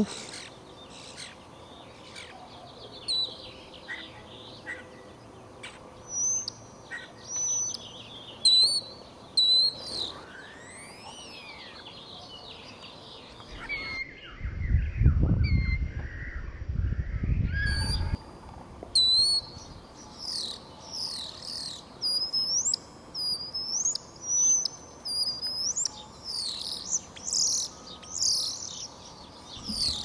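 Birdsong: a European starling singing whistles, clicks and rising and falling slides, then a busier stretch of quick high chirps and trills. A low rumble lasts about four seconds midway.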